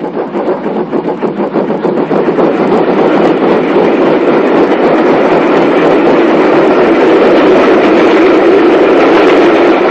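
Steam train running, double-headed by two GWR 'Dukedog' 4-4-0 steam locomotives; the sound grows louder over the first three seconds and then holds steady.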